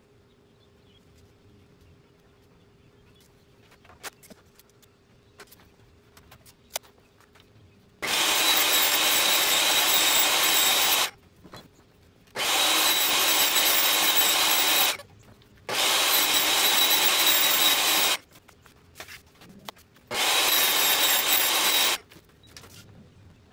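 Hitachi jobsite table saw running and cutting wood in four bursts of a few seconds each, starting about eight seconds in, with short pauses between. Before that there are only a few faint clicks and knocks of handling.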